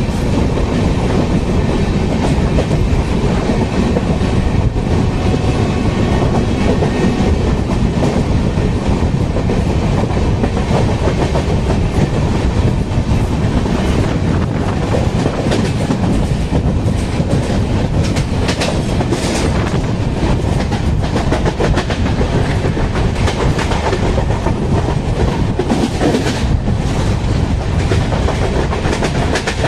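Train running along the track: a steady loud rumble of wheels on rail, with many sharp clicks as the wheels pass over rail joints.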